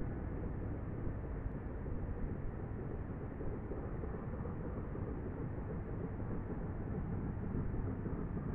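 Steam locomotive Flying Scotsman, a three-cylinder LNER A3 Pacific, working hard on a climb, heard from far off: its exhaust blends into a steady low rumble with no separate beats.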